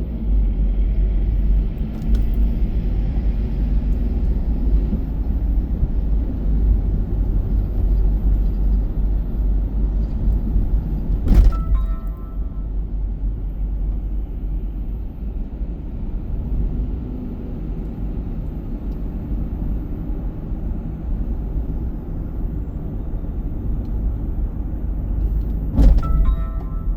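Steady low rumble of a car driving through city streets, heard from inside the cabin. Two sharp clicks, each followed by a short high tone, about 11 seconds in and again near the end.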